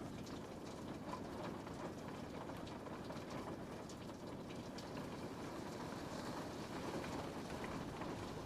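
Rain falling steadily against a window pane: an even patter with many small, scattered drop ticks over a low wash.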